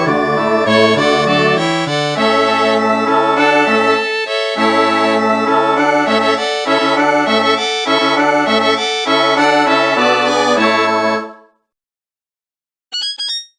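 Kyocera SE44 slider phone ringtone: a polyphonic melody over a bass line that stops about eleven seconds in. After a brief silence, the next ringtone starts near the end with short high chirps repeated about every two-thirds of a second.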